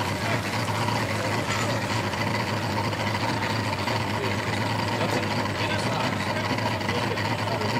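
Pickup truck engines idling steadily, a constant low hum, with faint voices in the background.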